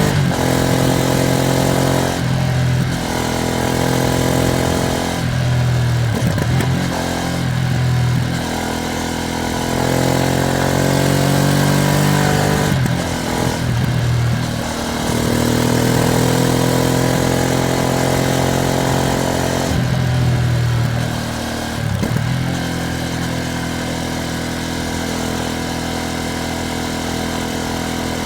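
Ducati Streetfighter V2S's 90-degree V-twin engine pulling through the gears, its pitch rising and then dropping at each of several shifts, then settling to a steady lower note for the last several seconds. The bike is new and being ridden through its break-in period.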